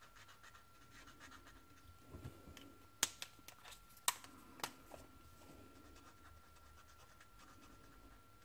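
Faint scratching of a felt brush-marker tip working black ink over tan paper, with a few sharp clicks between about three and five seconds in.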